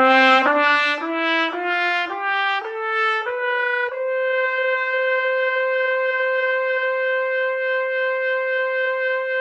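Trumpet playing an ascending D major scale, eight notes at about one every half second, then holding the top note, the high D, steadily for several seconds.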